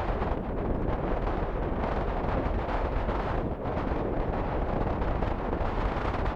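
Wind buffeting the microphone: a loud, steady rushing noise that dips briefly about three and a half seconds in.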